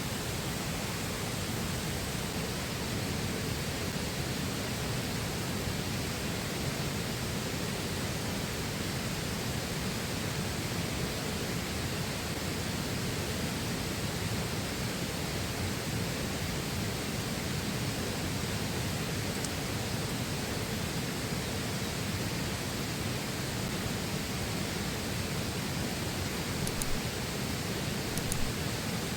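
Steady rushing of a flowing river, an even wash of water noise, with a few short sharp clicks near the end.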